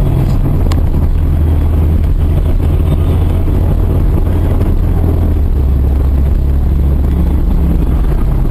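Steady low rumble of a moving car's engine and tyres, heard from inside the cabin, with one brief click a little under a second in.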